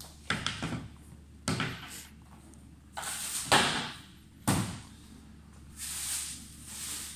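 Knocks and scraping as a bench seat is fitted across an inflatable PVC boat and the oars are handled: four sharp thuds about a second apart, with rubbing noises between them and near the end.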